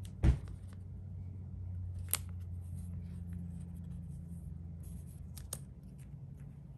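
A trading card being slid into a thin clear plastic sleeve: soft rubbing of card on plastic with a few sharp clicks and taps, the loudest about a quarter second in, over a low steady hum.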